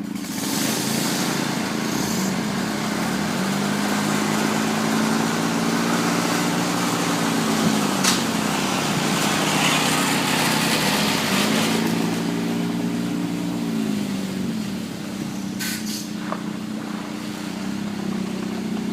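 Lawn tractor's small engine running hard under load while towing a car up an incline, its pitch sagging and recovering a couple of times. A few sharp clicks sound about eight seconds in and again near sixteen seconds.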